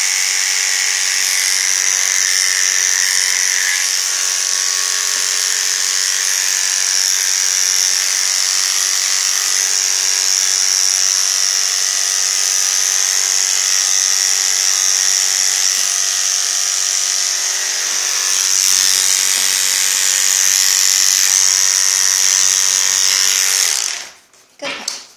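Corded electric pet clippers running with a steady high-pitched buzz while trimming a Yorkshire Terrier's coat, switched off about a second before the end.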